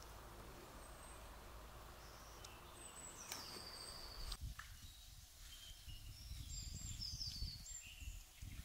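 Faint outdoor ambience of a few short bird chirps over a steady hiss. About four seconds in this changes to a low rumble with more bird calls.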